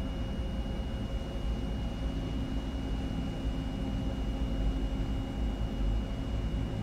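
Jet engines of an Airbus A320 at taxi idle: a steady low rumble with a constant thin high whine.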